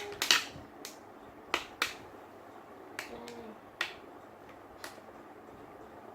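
Sharp plastic clicks and taps of Play-Doh toys and tools being handled on a hard surface, about eight in irregular succession, stopping after about five seconds.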